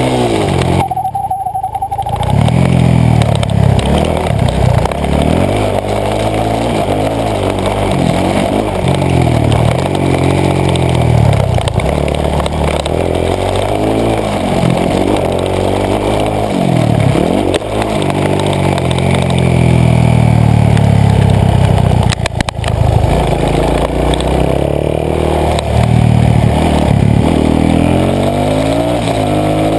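Supermoto motorcycle engine heard from a camera mounted on the bike, revving up through the gears and dropping back again and again as the rider accelerates and brakes through the corners.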